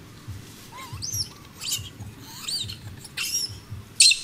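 Baby long-tailed macaque squealing, about five short high-pitched squeals that rise and fall in pitch, the last near the end the loudest, while an adult holds it down.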